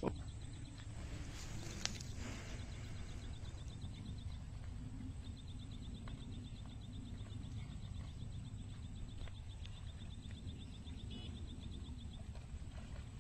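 Steady low rumble of wind on the microphone in open country. A rapid, high-pitched ticking trill runs over it in two long stretches with a short break about five seconds in, and there is a single click about two seconds in.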